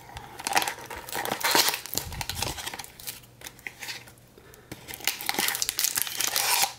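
Foil trading-card pack wrapper crinkling as it is handled and pulled out of its cardboard box: a dense run of crackles that eases off about midway and then picks up again.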